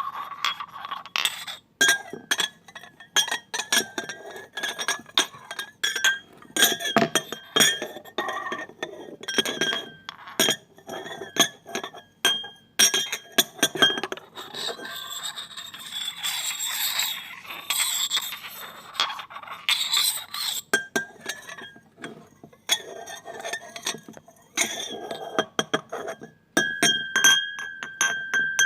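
Glass pieces clinking and tapping together in quick, irregular strikes, each leaving a ringing tone. About halfway through they jangle thicker and noisier for several seconds, and near the end one ringing tone holds on between strikes.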